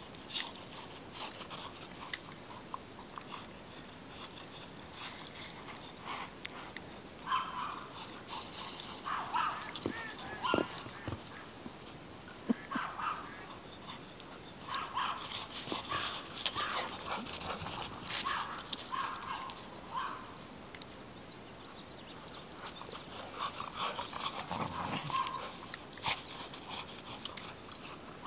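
A dog yipping and whining in clusters of short calls.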